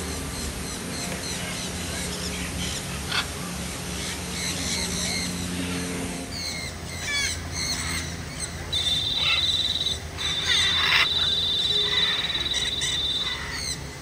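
Many aviary birds calling: a busy mix of chirps and squawks. About two-thirds of the way in, a long, high, even trill begins; it breaks off briefly and resumes, with louder squawks over it.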